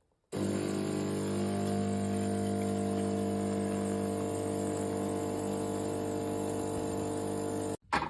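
De'Longhi Magnifica Start bean-to-cup coffee machine running with a steady mechanical hum. The hum starts abruptly, holds level for about seven seconds and cuts off suddenly near the end, followed by a sharp clack.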